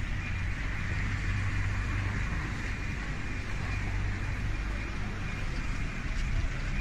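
Steady street traffic noise: a motor vehicle's engine running close by, a low hum under an even hiss.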